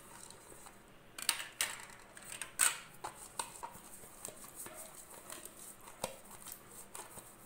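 Thin aluminium llanera moulds being handled: a few light clinks and taps of metal on metal, mostly in the first half, with soft scraping of a silicone brush oiling the inside of a mould.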